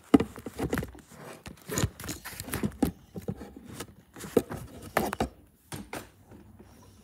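Irregular knocks, taps and rustling of a phone being handled and covered right at its microphone, fabric brushing over it between the knocks.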